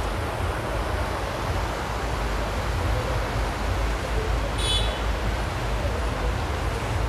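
Steady rush of the swollen Ganges running high and fast after heavy rain, with wind on the microphone making a low rumble. A brief high chirp comes about halfway through.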